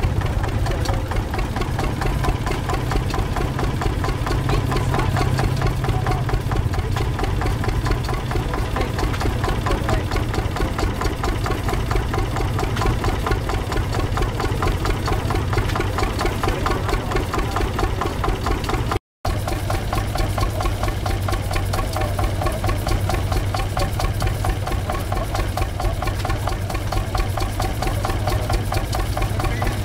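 1938 Kramer K18 tractor's single-cylinder diesel engine running steadily, a quick, even beat of firing strokes.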